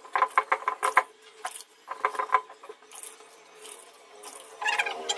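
Cylindrical stone roller rocked and rolled back and forth on a flat stone grinding slab, grinding wet chutney paste. Stone knocks on stone in quick bursts of several strokes a second, with short pauses between the bursts.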